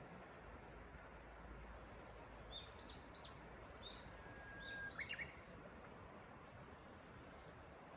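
A Japanese bush warbler (uguisu) sings once about four seconds in: a long level whistle, then a quick run of notes, the 'hoo-hokekyo' song. A few short high chirps come just before it, over a faint steady hiss.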